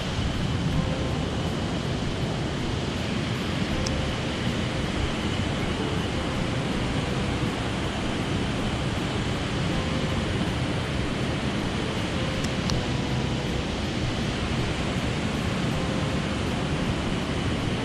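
Mountain stream water rushing, a steady even hiss.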